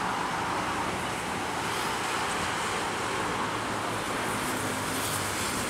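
Diesel locomotive of a commuter train approaching: a steady hiss and rumble, with a low engine drone coming up about two-thirds of the way in.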